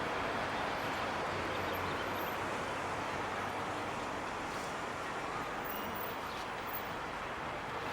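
Steady outdoor background noise with no distinct events: an even, unchanging hiss and hum with no bell or clock strikes.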